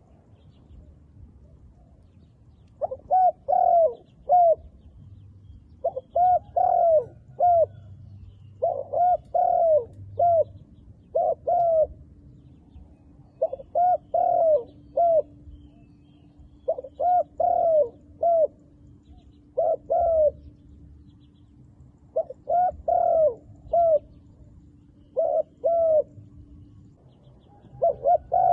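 Spotted dove cooing: about ten short phrases of three or four coo notes each, repeated every two to three seconds.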